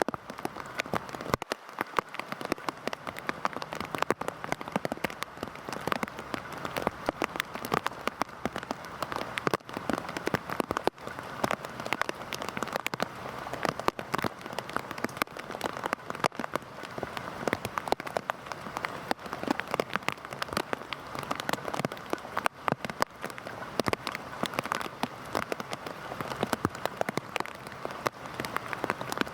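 Heavy rain falling steadily, with a dense patter of individual drops striking a surface.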